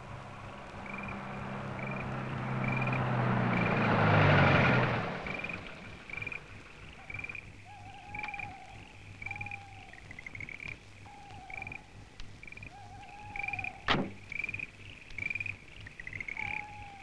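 A car drives up, its engine and tyres growing louder to a peak about four seconds in, then dying away as it stops. A single sharp knock comes near fourteen seconds, like a car door shutting. Regular chirping night calls run throughout, joined by lower calls from about seven seconds in.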